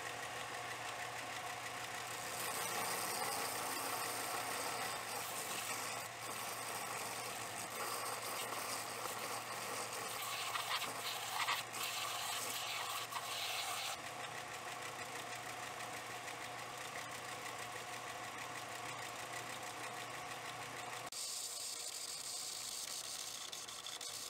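Small benchtop belt sander running with a steady motor hum while a rusty steel ratchet is ground against the abrasive belt. The grinding hiss is harsher and louder in the first half, with a few scraping peaks, then steadier.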